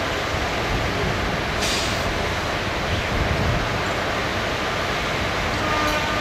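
WDP-4D and WDG4 diesel locomotives idling, a steady low engine rumble, with a short hiss of air about a second and a half in.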